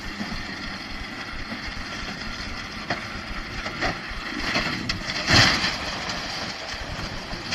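Truck engine running under a steady rumble, with a couple of knocks, then one loud crash about five seconds in as the truck rolls over onto its side in the snow.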